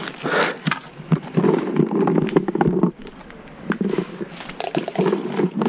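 Hand rummaging in a bait tub of boilies and tossing them into the water: stretches of rustling handling noise full of small clicks and taps, in several separate spells.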